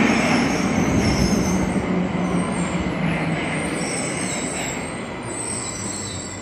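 Tokyo Metro Ginza Line subway train running into the platform and slowing. It is a dense rumble of wheels and motors that grows steadily quieter, with a low hum that drops in pitch partway through and a faint high squeal of the wheels.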